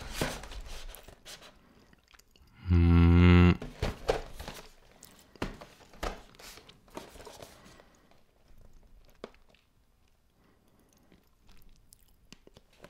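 A person chewing crunchy breakfast cereal, with scattered crunches and clicks. A low hummed 'mmm' lasts about a second, a few seconds in, and is the loudest sound. The chewing grows faint in the second half.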